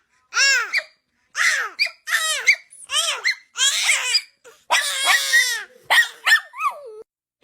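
A dog giving a quick string of high whining yelps, about a dozen calls, each rising and then falling in pitch.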